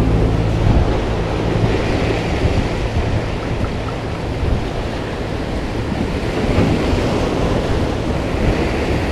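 Sea waves washing and splashing against a concrete seawall and rocks, in slow surges, with wind on the microphone.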